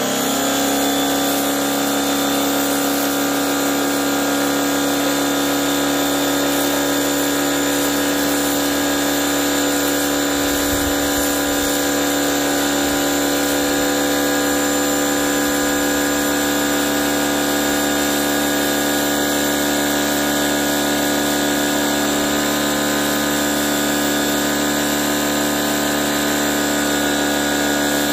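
Ryobi electric pressure washer's motor and pump running at full speed, one steady pitch with a whine, the water jet spraying with a constant hiss.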